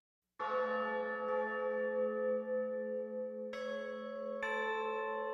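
Bell tones of an intro sting: a first deep bell strikes about half a second in and rings on, and two more strikes join about three and a half and four and a half seconds in, each left to ring and overlap.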